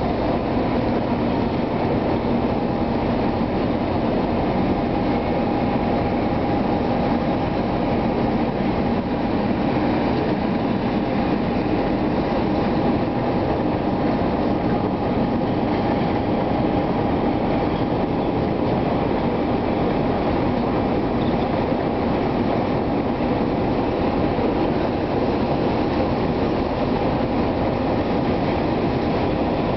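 Container freight train wagons rolling steadily along the track: an even, unbroken rail noise with a faint steady tone running through it.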